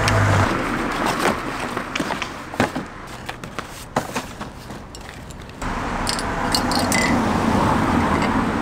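Light clicks and scrapes of cardboard packaging and cable ties being worked open, over steady road traffic noise that grows louder a little past halfway.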